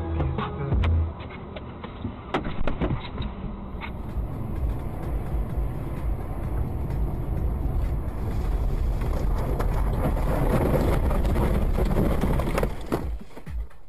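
Vehicle road and engine noise recorded from a car, a dense steady rumble with several sharp clicks or knocks in the first few seconds. It grows louder in the second half and falls away near the end.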